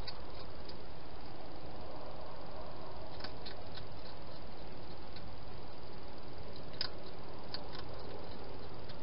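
Wild hedgehog chewing food from a bowl: two short runs of soft crunching clicks, one about three seconds in and one near seven seconds, over a steady hiss.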